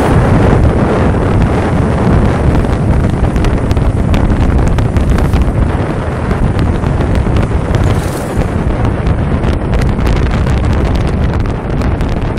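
Heavy wind buffeting on the microphone of a Vespa scooter on the move, with the scooter's engine running underneath.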